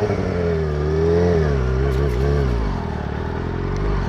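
Kawasaki ZX-6R 636's inline-four engine running under throttle while riding; the revs rise a little about a second in, then fall away.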